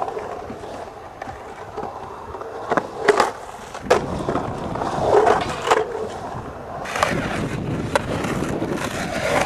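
Skateboard wheels rolling on a concrete skatepark, the rumble growing louder in the second half, with several sharp clacks of boards striking the concrete.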